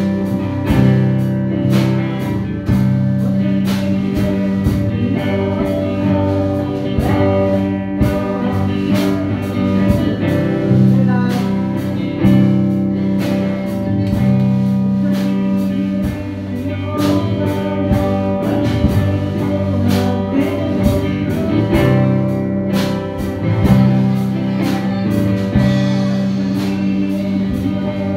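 Live worship band playing: guitar and a drum kit keeping a steady beat, with singing.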